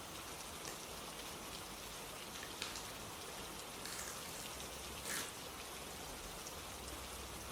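Steady rain falling, with a few louder single drops standing out, the strongest about five seconds in.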